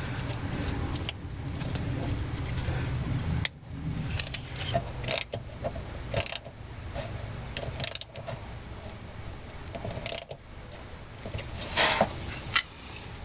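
Crickets chirping in a steady, fast-pulsing high trill, with scattered sharp clicks and knocks of hand work on a vehicle, the loudest of them about twelve seconds in.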